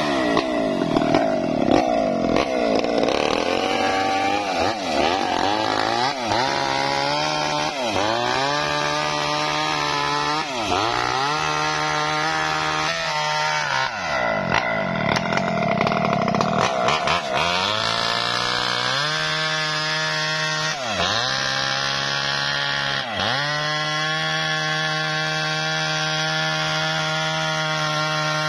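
Two-stroke chainsaw cutting wood: its engine pitch sags again and again as the chain bites and then picks back up. After about the middle it holds a steadier pitch in the cut, with a couple of short dips.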